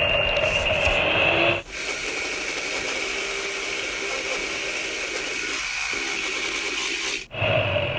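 Electric hand mixer running, its beaters whisking a batter of creamed butter, sugar and egg: a steady motor whine over a low hum. About a second and a half in, the sound switches abruptly to an even, hissy whir with a thin high tone, then switches back shortly before the end.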